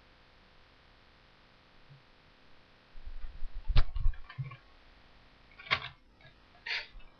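A few low thumps and sharp clicks over faint room hiss, starting about three seconds in, with two more sharp clicks near the end.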